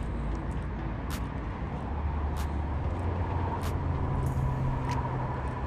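Wind rumbling on the microphone, with a short sharp tick about every second and a quarter from the fishing reel as a lure is cranked in.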